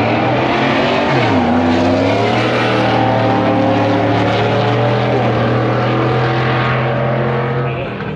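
Two cars making a drag-strip pass at full throttle. The engine pitch rises, drops sharply at a gear shift about a second in, climbs again, then settles into a steady drone that fades near the end.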